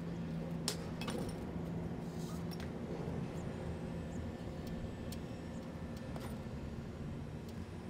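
Steady low engine hum, typical of a parked semi truck's diesel idling, with a few scattered sharp metallic clicks and clinks.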